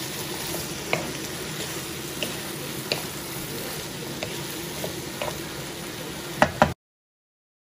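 Vegetables and pork sizzling in a nonstick wok as they are stir-fried with a wooden spatula, with scattered light knocks of the spatula against the pan. Two sharper knocks come just before the sound cuts off suddenly near the end.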